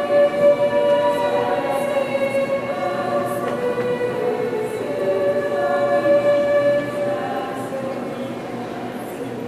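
Choir singing slow, long-held chords inside the cathedral, growing quieter over the last two seconds or so.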